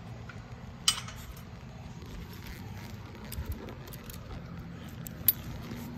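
Two sharp metallic clinks from a dog leash's snap hook knocking against the collar hardware, about four seconds apart, over a steady low rumble.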